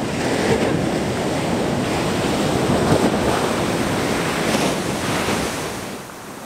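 Ocean surf washing onto a beach, with wind buffeting the microphone. The rush eases off near the end.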